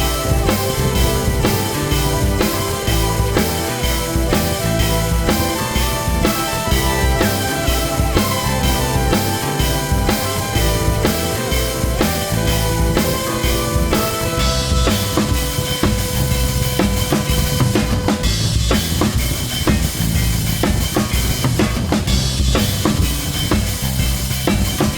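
Background music with a drum kit keeping a steady beat and melodic instruments over it, the texture thinning a little about fourteen seconds in.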